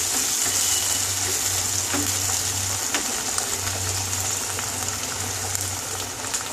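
Pumpkin and potato curry sizzling steadily in a nonstick pan on a gas burner, water just added to the hot oil and spices so it can simmer, with a couple of faint knocks in the middle.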